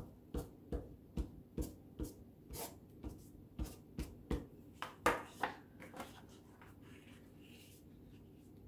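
Glue stick rubbed across a sheet of paper in quick strokes, about two or three a second, for roughly six seconds. Near the end, a faint rustle as the paper sheet is handled.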